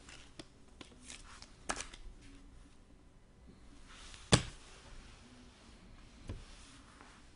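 Trading cards being handled: faint rustles and light taps, with one sharp click a little over four seconds in.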